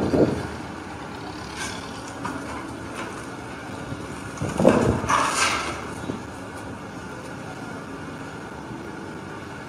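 Tracked excavator's diesel engine running steadily as it works into collapsed timber and metal roofing, with one louder burst of scraping, crashing debris about halfway through.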